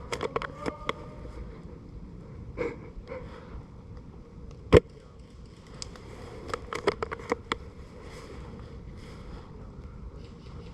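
Airsoft gunfire in the field: scattered sharp cracks and snaps, bunched in quick clusters near the start and again about two-thirds of the way in, with one loud single crack about five seconds in.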